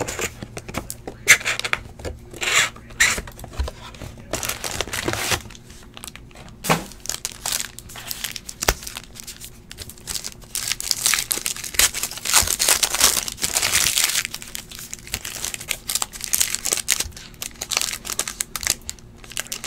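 Foil wrappers of 2015 Gridiron Kings football card packs crinkling and tearing as they are ripped open by hand, with a few light knocks among the rustle.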